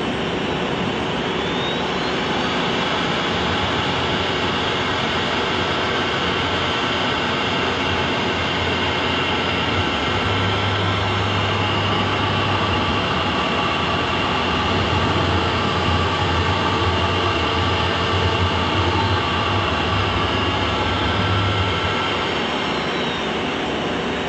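Three-spindle CNC wood router running: a high spindle whine climbs about two seconds in and winds back down near the end, over steady machine noise, with a low hum joining from about ten seconds to about twenty-two.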